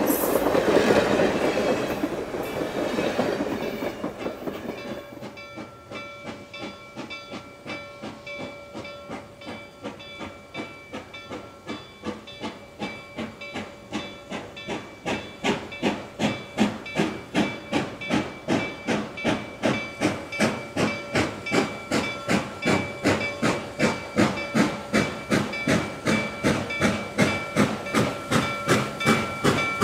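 Passenger cars rolling past with wheel clatter. Then the Reading T-1 4-8-4 steam locomotive No. 2102 moves in slowly: a quick, even beat of steam puffs over a faint hiss, growing louder as it approaches.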